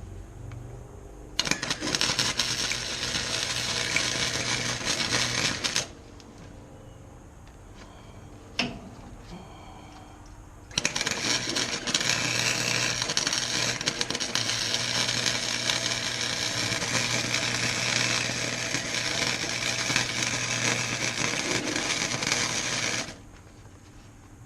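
Electric welder arc crackling as it lays two welds on steel: one about four seconds long, then after a pause a longer one of about twelve seconds. A steady low hum runs underneath, and a single sharp tick comes between the welds.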